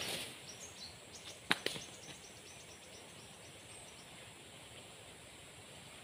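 Small birds chirping in a quick series of short, high notes that fade out after about four seconds, with two sharp clicks close together about a second and a half in.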